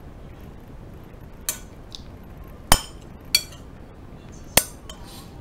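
Metal spoon clinking against a ceramic plate while scooping up egg fried rice: four sharp clinks with a brief ring, irregularly spaced.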